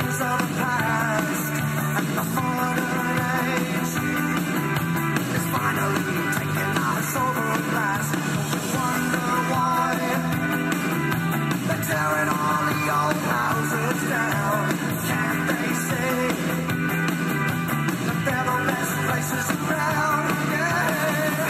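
Rock song playing, with singing over the band.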